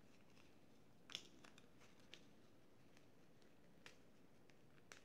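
Near silence with a few faint rustles and light ticks of satin ribbon being handled and pressed between fingers; the clearest tick comes about a second in.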